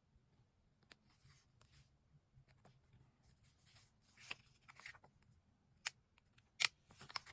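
Paper and stationery being handled on a desk: short scratchy rustles, then several sharp clicks near the end, the loudest about six and a half seconds in.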